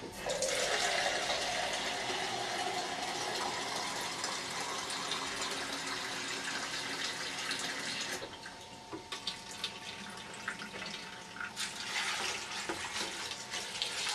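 Cold water running from a kitchen tap into a measuring jug, shut off about eight seconds in, then water splashing as it is poured from the jug into a plastic fermenting bin of chopped rhubarb near the end.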